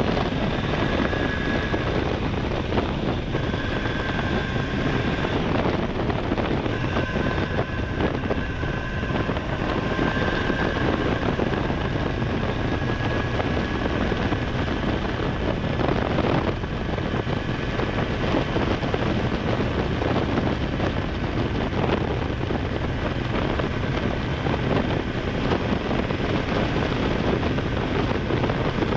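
Honda Hornet 900's inline-four engine running steadily under way, with wind rushing over the microphone. A thin high whine comes and goes over the first half.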